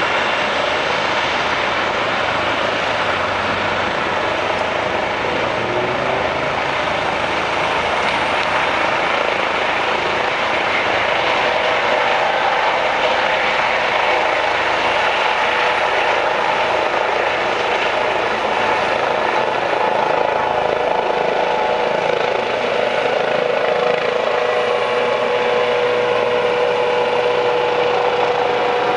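Eurocopter EC135 helicopter, twin turbines and fenestron ducted tail rotor, lifting off from a helipad and climbing away. Steady rotor and turbine noise with a whine that grows stronger in the second half.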